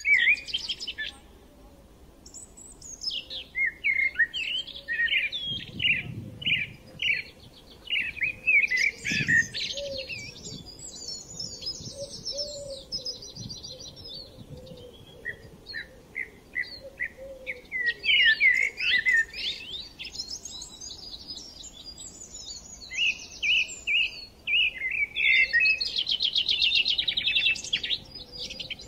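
Small songbirds chirping and singing, a busy run of quick high notes and rattling trills.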